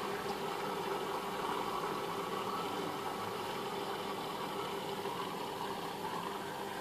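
Steady mechanical hum with a faint hiss from an aquarium filter pump running.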